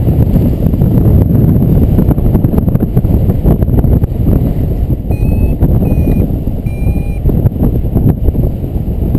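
Steady wind rushing over the microphone in flight, with three short electronic beeps from a paragliding variometer a little past the middle, the tone it gives when the glider is climbing in lift.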